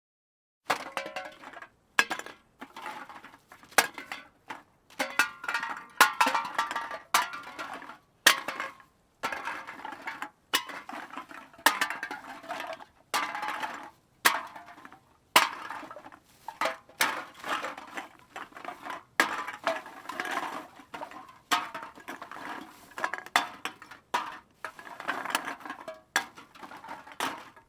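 Empty aluminium soda cans dropped one after another into a cart, each landing with a sharp clink and a short metallic rattle as it hits the cans already there, irregularly, a couple of drops a second.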